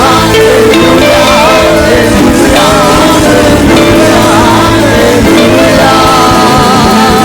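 Live gospel music: a church choir singing with a band.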